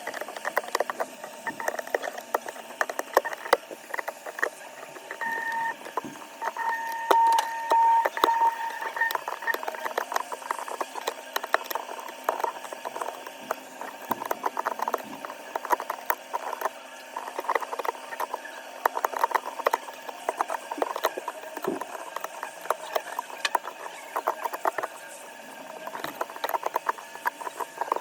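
Small repair tools clicking, tapping and scraping on an iPhone 13 Pro during a back-glass replacement, in many quick irregular clicks. A few seconds in, a steady tone sounds for about four seconds, and a faint low hum runs through the middle.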